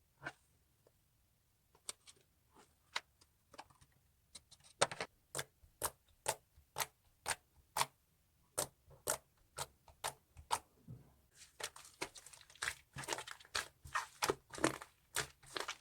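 Slime being pressed and poked with the fingers, making a series of sharp sticky clicks and pops, about two a second, becoming quicker and denser after about eleven seconds.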